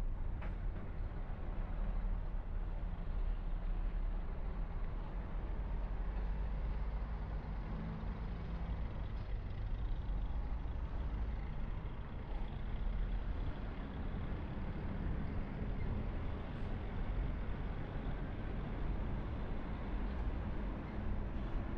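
A car being driven: a steady low rumble of engine and road noise with an even hiss of tyres on the road.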